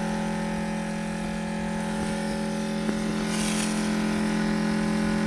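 The Fimco sprayer's Hiflow 4.5 GPM 12-volt diaphragm pump runs with a steady hum while pumping water out through the switched-on boomless nozzles. There is a small click about three seconds in.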